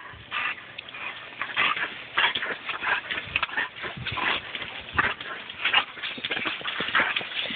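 German Shepherd biting at the spray from a garden hose nozzle: quick, irregular snaps and splashes, several a second, mixed with the dog's excited noises.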